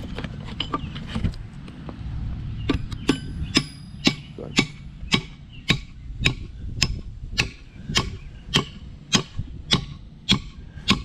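Hammer blows driving a pin through a fence post into a wooden cross brace, a steady run of about two strikes a second that starts about three seconds in.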